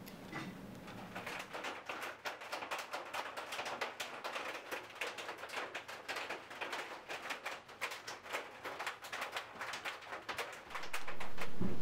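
Rapid, irregular light clicking and ticking, several clicks a second. About a second before the end, louder music cuts in over it.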